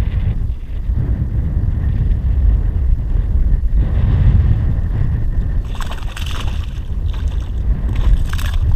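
Wind buffeting the microphone in a steady low rumble, with splashing about six seconds in and again near the end as a hooked peacock bass thrashes at the surface beside the kayak.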